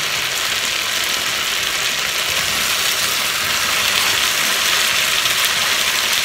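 Ravioli, vegetables and cherry tomatoes sizzling steadily in a hot frying pan.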